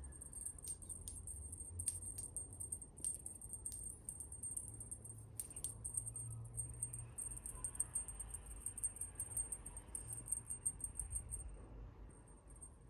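Insects, likely crickets, chirping in a rapid high-pitched trill that pauses briefly near the end, with a few sharp clicks and a low rumble underneath.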